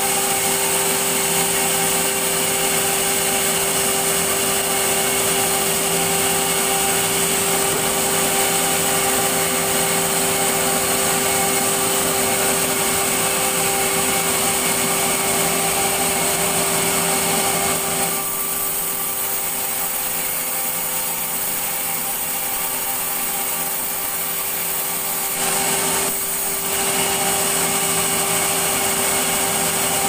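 Sawmill circular saw bench running with a steady whine while its blade cuts through timber being fed across the table. The cutting noise eases for several seconds past the middle, then picks up again.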